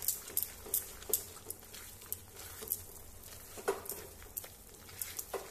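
A silicone spatula stirring thick, sticky apple halwa with cashews in a non-stick pan, making irregular soft clicks and taps a few times a second over a faint low hum.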